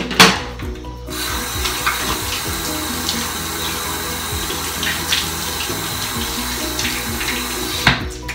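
Bathroom sink tap running, with water splashing as someone washes their face at the basin. The water comes on about a second in and shuts off near the end.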